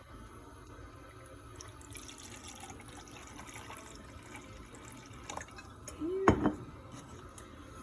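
Apple cider vinegar being poured: a faint trickle of liquid. About six seconds in there is a brief, louder knock.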